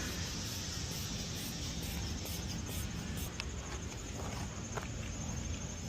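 Steady outdoor background noise with a few faint, short clicks, likely from lockout tools being worked at a car door.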